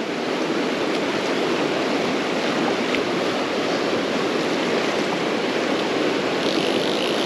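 Fast river water rushing steadily past a rock at the bank, the river running high after rain.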